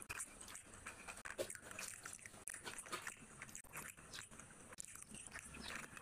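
Eating sounds: quiet, irregular wet smacks and clicks of chewing, with fingers squishing through rice and fish curry.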